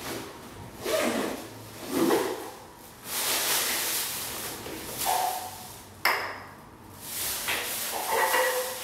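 A backpack being unpacked: a plastic bag of toiletries rustling and crinkling in several bursts, with a sharp knock about six seconds in and small clinks as cans are set down on a sink.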